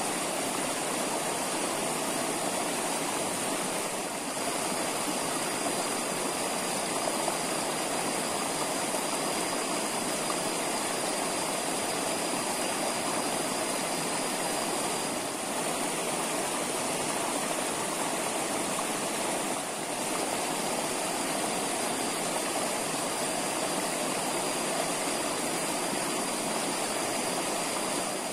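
Steady rush of flowing stream water, an even hiss at a constant level. A faint thin high tone runs over it and drops out for a few seconds in the middle.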